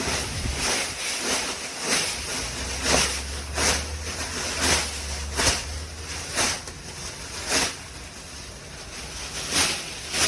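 Dry leaves rustling in a series of short swishes, roughly one every half second to a second, as piles of leaves are moved about.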